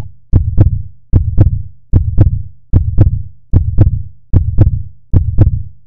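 Heartbeat sound effect: a deep double thump, lub-dub, repeating steadily about every 0.8 seconds, seven beats in all.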